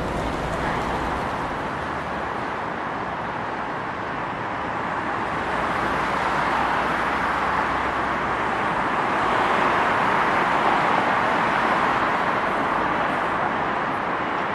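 Road traffic: a steady wash of tyre and engine noise that swells louder in the second half, peaking around ten to eleven seconds in.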